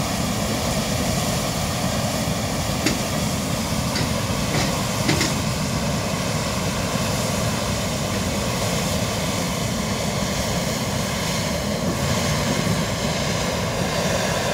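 Hot air balloon's propane burner firing in one long, steady, unbroken blast to give lift at take-off, then shutting off abruptly near the end.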